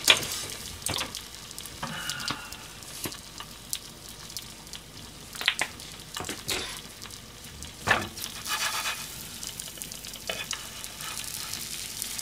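Buttered sandwich frying in a pan: a steady sizzle, with a dozen or so sharp clicks and knocks of utensils scattered through, the loudest right at the start.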